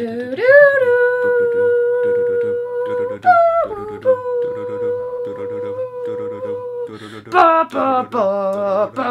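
People humming a tune a cappella. Long held notes swoop up at the start and leap higher about three seconds in, over a quick rhythmic vocal pulse underneath. A run of shorter, changing notes comes near the end.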